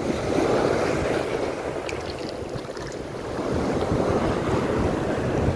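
Ocean surf breaking and washing in, swelling twice, with wind buffeting the microphone.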